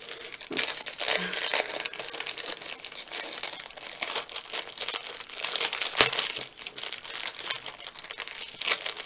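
Clear plastic bag of small craft cut-outs crinkling and crackling as hands open and handle it, with one sharper crackle about six seconds in.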